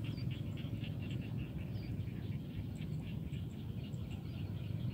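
Paddy-field wildlife chorus: many small calls ticking rapidly and continuously over a steady low rumble, with a few short high chirps.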